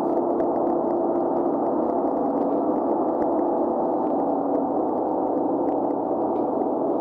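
Large gong sounding a steady, dense drone of many overlapping tones with no separate strikes: the kind of eerie sustained gong sound used for horror film effects.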